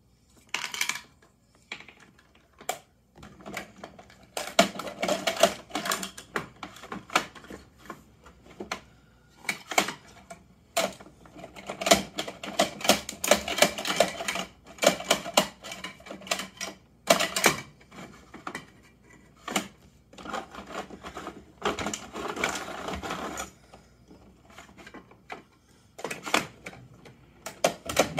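Plastic toy garbage truck and small plastic toy bins being handled: rapid clattering and clicking of hard plastic in runs of a few seconds, with single clicks and short pauses between.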